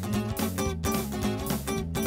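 Upbeat band music: guitar over a bass line and drums keeping a steady beat.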